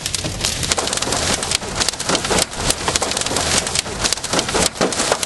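Heavy storm rain pelting a car's windscreen and body, heard from inside the cabin: a dense, steady patter packed with many sharp hits on the glass.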